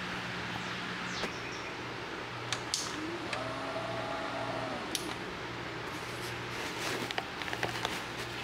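A steady low hum under an even fan-like hiss, with scattered light clicks and taps, a cluster of them near the end.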